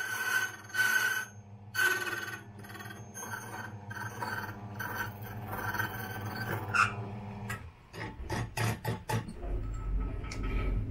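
Key-cutting machine running with a steady motor hum while its cutter scrapes a key with a high ringing tone that comes and goes. About three quarters of the way through the hum stops and a run of sharp clicks follows.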